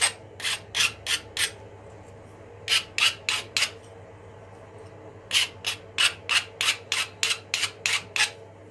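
Hand file rasping across the cut end of an aluminium tube in quick strokes, about three a second, in three runs with short pauses between. The file is taking the rough edges off the freshly cut metal.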